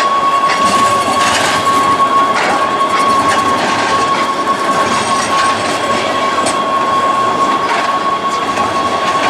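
Zurich tram running on its rails, with a steady high whine held throughout and scattered clicks of the wheels over rail joints.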